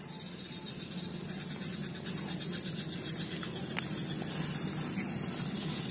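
Steady background noise: a low, even hum with a constant high-pitched hiss over it, and a few faint ticks.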